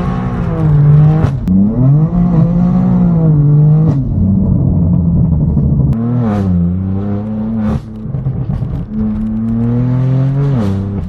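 BMW M4 F82's twin-turbo straight-six running through a straight-piped AWE track exhaust, pulling hard under acceleration. The engine note climbs and drops sharply at each gear change, about four times.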